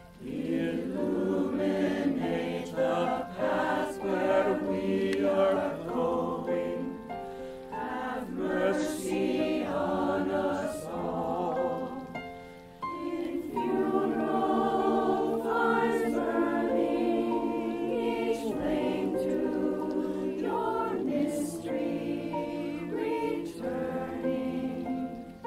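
Mixed amateur choir singing a requiem in several parts. The phrases break off briefly about halfway through, then the voices move into long held chords.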